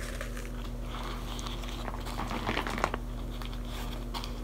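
Paper sandwich wrapper crinkling in short, scattered rustles as the sandwich is handled, over a steady low hum.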